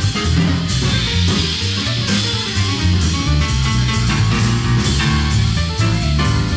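A small jazz group playing: upright piano over a moving bass line, with drum kit and cymbals.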